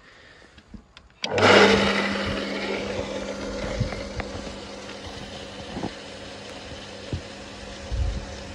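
Electric water pump for a fog misting system switched on about a second in: a sudden start, then a steady motor hum with a hiss that is loudest at first and settles to an even level as water feeds the fogger nozzles. A few light knocks fall over it.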